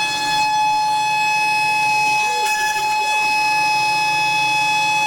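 Water-cooled 60,000 RPM VFD spindle running at about 52,000 RPM, a loud, steady high-pitched whine, as its 10 mil endmill mills traces into a copper-clad FR4 circuit board.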